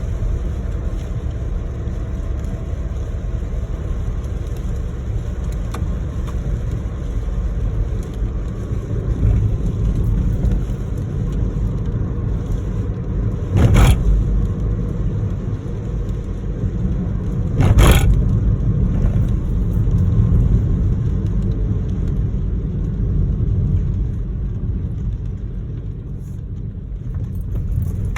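Steady low rumble of a car driving, with two short loud swishes about halfway through and again about four seconds later.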